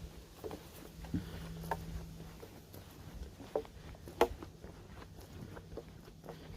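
Footsteps crunching on a dry forest trail, irregular steps with one sharper snap about four seconds in, over a faint low hum that comes and goes.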